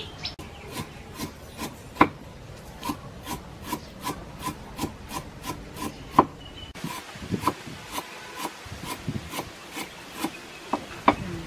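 Cleaver slicing lemongrass stalks on a round wooden chopping block: a steady run of short knife taps against the wood, about three a second, with a few harder chops.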